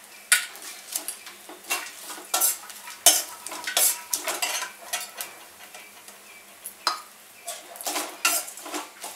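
Steel spoon scraping and knocking against a stainless steel kadai as whole spices (bay leaves, dry coconut pieces, stone flower) are stirred and roasted. The strokes are irregular, about one or two a second, with a short lull a little past the middle.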